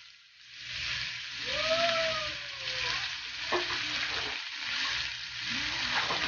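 Ingredients sizzling in hot oil in a pan while being stirred, with a sharp clink of the utensil against the pan about three and a half seconds in.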